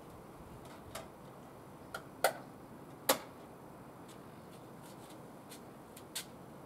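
A few sharp, irregular clicks from a laptop being worked by hand, the two loudest about two and three seconds in, over a quiet background.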